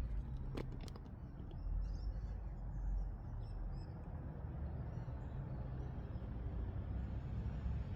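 Faint chirping of small birds over a steady low rumbling noise, with a single click about half a second in.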